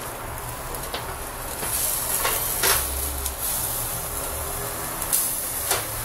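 Meat chops hissing and sizzling on the wire rack of an electric grill, with several sharp clicks as a fork knocks against the rack while they are turned.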